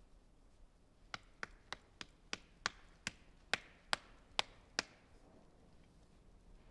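A run of about eleven sharp taps or knocks, roughly three a second and spacing out slightly toward the end, starting about a second in and stopping a little before five seconds.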